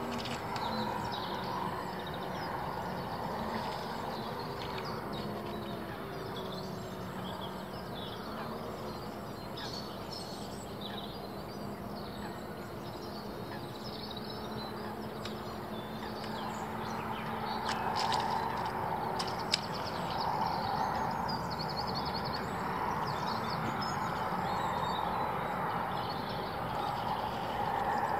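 Remote-controlled carp bait boat's electric motors humming steadily, wavering slightly and fading away as it runs out across the lake. Small birds chirp now and then.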